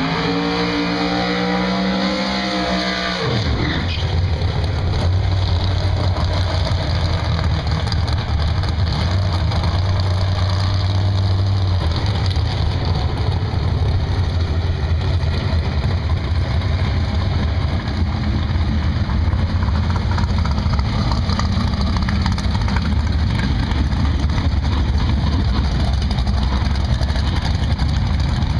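Drag racing car engine revving with rising pitch for about three seconds, then dropping off abruptly. After that comes a loud, steady low engine rumble.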